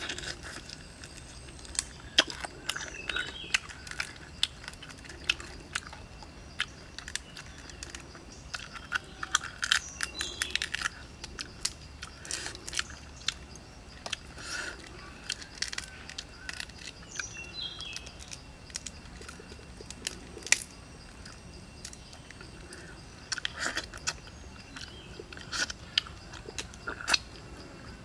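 Grilled crayfish shell cracking and snapping as it is peeled apart by hand, mixed with chewing and sucking at the meat: irregular sharp cracks and clicks, some in quick clusters.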